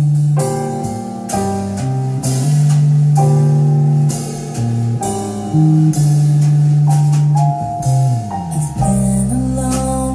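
Recorded music played back loud through a pair of Tannoy Canterbury SE loudspeakers: a deep bass line of long held notes, each lasting a second or two, under drum hits and other instruments.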